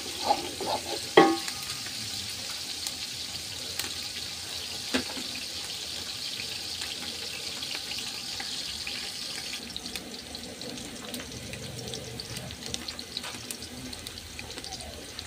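Chopped red onions sizzling steadily in hot oil in a large aluminium pot, frying toward golden brown. A sharp knock of the wooden spoon against the pot about a second in, and a lighter one near five seconds.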